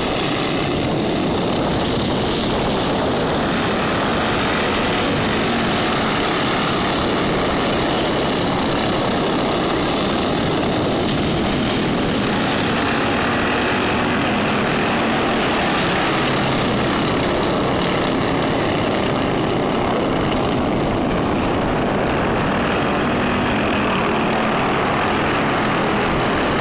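Racing lawn mowers' small engines running hard together as a pack circles the track: a loud, steady drone.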